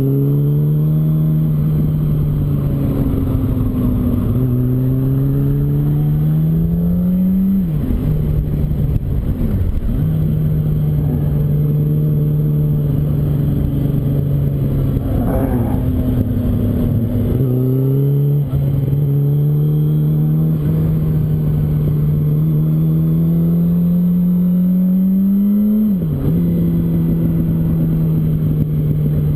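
Yamaha R1's inline-four engine pulling through the curves. Its pitch climbs steadily and then drops suddenly several times as the gears change, over a steady rush of wind and road noise.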